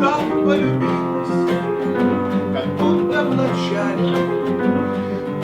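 Instrumental music led by acoustic guitar, with plucked and strummed chords and sustained notes.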